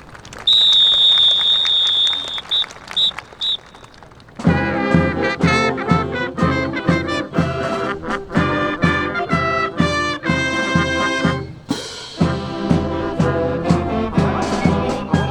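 A long high whistle blast followed by three short ones, the starting signal for a military fancy drill. Then brass-band music with a strong swing beat starts about four seconds in.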